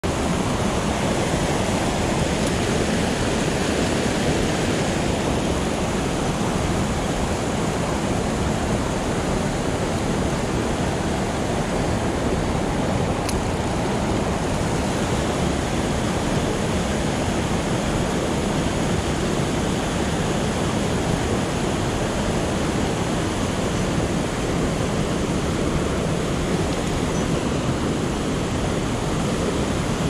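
Mountain stream water rushing steadily over rocks in shallow riffles.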